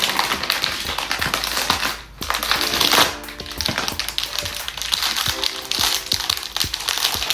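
Plastic packaging of a brick-building set crinkling and rustling with many small clicks as it is opened. Soft background music plays underneath.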